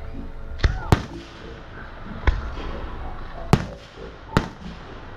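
Fireworks going off: five sharp bangs of aerial shells bursting, the loudest two close together about a second in and the rest spread over the next few seconds.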